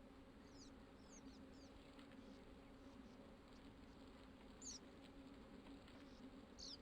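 Near silence: a faint steady low hum with a few brief, high, downward-sweeping chirps.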